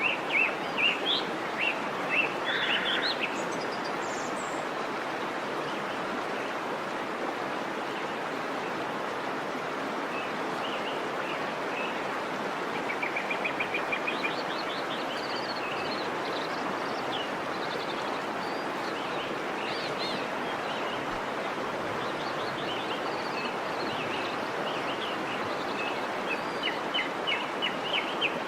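Waterfall rushing steadily, with birds chirping over it: a few chirps at the start, a quick trill about halfway through, and frequent chirps in the second half.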